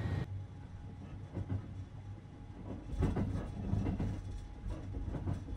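Interior running noise of the Sunrise Express sleeper train, a 285-series electric train, heard inside a sleeping compartment: a steady low rumble with a few soft knocks from the wheels and carriage.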